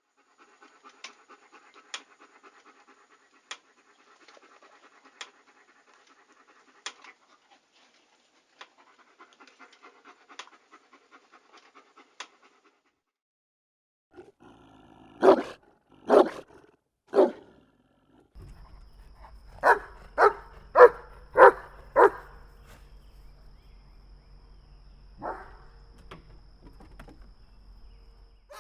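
German Shepherd dog panting softly and quickly, then three loud barks about a second apart. Then a quick run of five barks, and a single fainter bark a few seconds later over a low hum.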